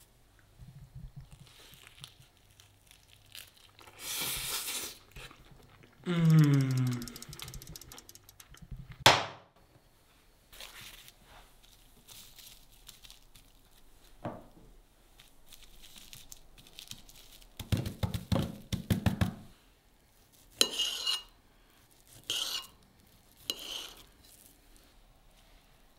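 Assorted kitchen handling sounds from a wooden board, a plate and a knife: scattered taps, clinks and rustles. A falling pitched sweep comes about six seconds in, a sharp knock about nine seconds in, and a quick run of clicks about eighteen seconds in.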